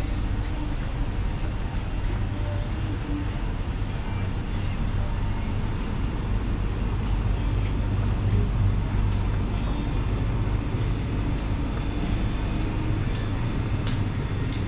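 Steady low hum of ambient background noise with no distinct event, and a faint click near the end.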